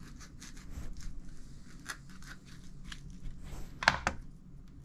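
Kitchen knife cutting around an avocado, rasping through the skin and scraping against the pit in many short strokes. Near four seconds in come two sharp clicks.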